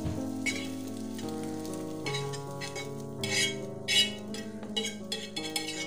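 Background instrumental music with held tones, over a few short scraping bursts as scrambled egg is scraped from a frying pan into a plastic bowl of spiced minced beef; the loudest comes about four seconds in.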